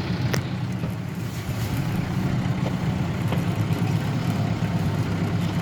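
Engine of a farm vehicle running steadily as it drives up a hill, a constant low drone with a single faint click about a third of a second in.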